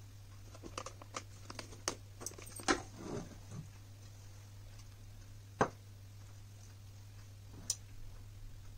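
Light clicks and knocks of a wooden spoon and a plate being handled on a kitchen counter: a quick cluster in the first few seconds, then two single knocks later, over a steady low hum.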